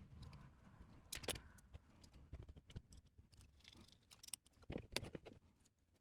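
Faint, scattered clicks and taps of small 3D-printed plastic robot-arm parts being handled and fitted together, with a few sharper knocks about a second in and near the end.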